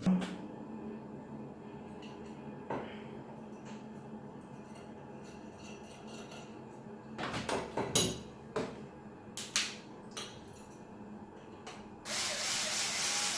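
Small metal RC suspension parts being handled and fitted by hand on a workbench: scattered light clicks and taps, then about a second and a half of scratchy rubbing noise near the end.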